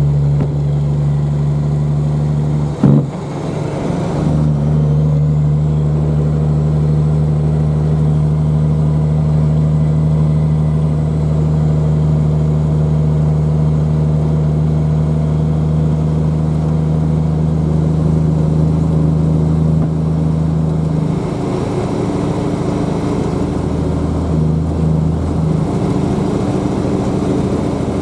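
A heavy engine running at a steady speed, with one sharp knock about three seconds in. About seven seconds before the end the engine note changes and a rougher noise rises over it.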